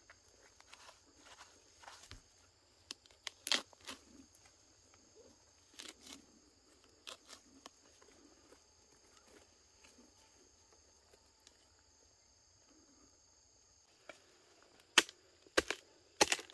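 Rotten palm-trunk fibre being torn and broken apart by hand, with scattered crunches and snaps, the loudest about three and a half seconds in. Near the end, a few sharp blows of a machete into the trunk.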